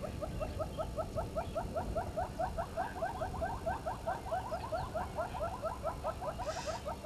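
An animal calling in a fast, even series of short upward-flicking notes, about six a second, without a break.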